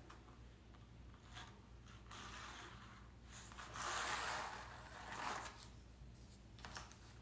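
Pencil scratching along a ruler on a canvas as straight guide lines are drawn: a few short strokes, the longest and loudest about four seconds in.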